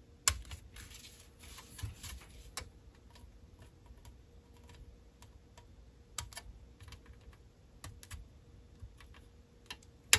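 Hobby sprue cutters snipping a small plastic model-kit part off its sprue: scattered sharp clicks, the loudest just after the start, with light rustling of the plastic between cuts.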